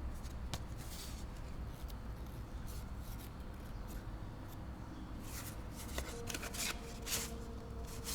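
Packaging being handled and unpacked by hand: short, scattered rustles and crinkles with a few light clicks, getting busier in the second half, over a low steady hum.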